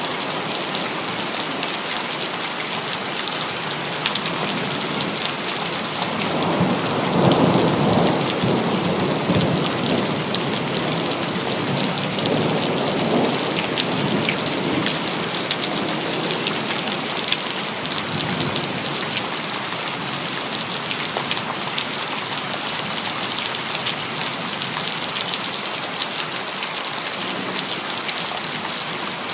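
Steady rain falling, with the patter of individual drops throughout. A roll of thunder swells up about six seconds in and dies away over a few seconds, with a weaker rumble shortly after.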